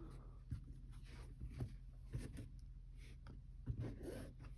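Faint, scattered scrapes and light clicks of trading cards being handled and slid against one another, over a low steady hum.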